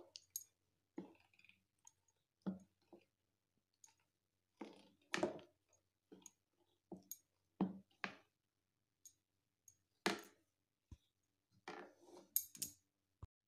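Spatula stirring and folding thick urad dal and rice idli batter in a bowl: soft, wet squelching scrapes that come irregularly, about one a second, with short quiet gaps between.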